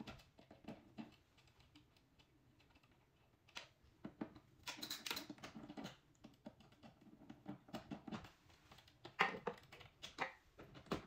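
Screwdriver turning out the screws of a plastic light switch cover plate: faint scattered clicks and scrapes, coming in clusters about four seconds in and again near the end.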